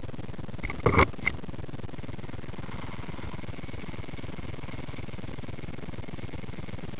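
A few sharp knocks about a second in, from the camera being handled and repositioned on the floor, over a steady low hum. After that comes a faint, steady high whine, which fits a small electric RC helicopter's motor running.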